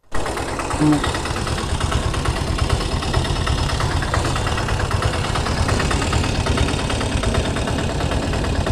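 Motorcycle engine running steadily, its firing heard as a fast even ticking.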